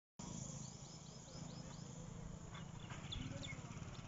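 Birds chirping: a quick run of six repeated chirps in the first half, then a few scattered calls, over a steady low rumble.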